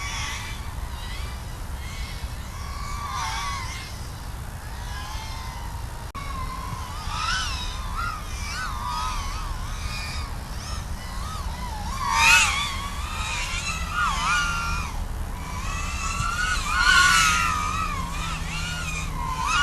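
Whine of a 3-inch FPV quadcopter's brushless motors (1106 size, 4300kV) spinning two-blade Gemfan 3018 props, the pitch wavering up and down as the throttle changes. Two louder high-throttle surges come about twelve and seventeen seconds in, over a steady low rumble.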